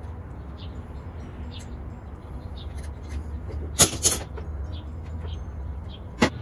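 Hands handling wire connectors on an outboard's wiring harness: faint scattered clicks and taps, with two sharp clicks about four seconds in and another near the end, over a steady low hum.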